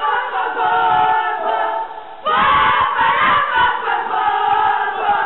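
A group of young boys singing and shouting a celebration chant together. There is a short break about two seconds in before the next loud phrase.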